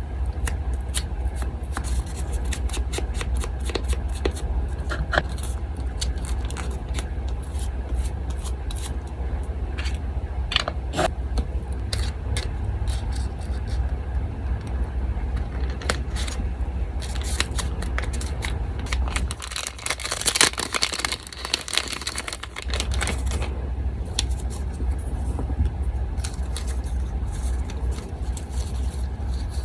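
Paper being handled and cut with scissors: scattered crisp snips, rustles and taps over a steady low hum from an electric fan. About twenty seconds in, the hum drops away for a few seconds while a denser burst of paper rustling and scraping sounds.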